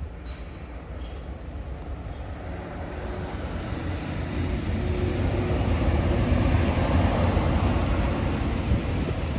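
Vehicle rumble that grows steadily louder over several seconds, with a faint steady hum partway through, then cuts off suddenly.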